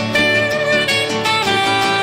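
Instrumental break of a disco polo Christmas song, with no singing: a melody over a steady beat.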